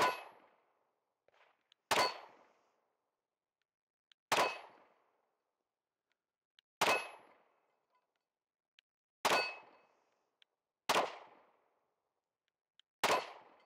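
Compact pistol fired slowly, seven shots about two seconds apart, each crack followed by a short ringing tail. Faint short ticks come between some of the shots.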